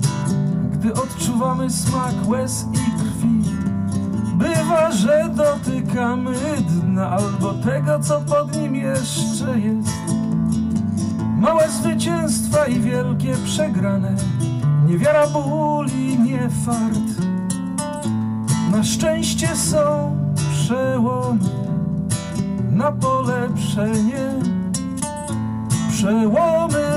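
Acoustic guitar playing an instrumental passage of steady chords, with a wavering melody line above them.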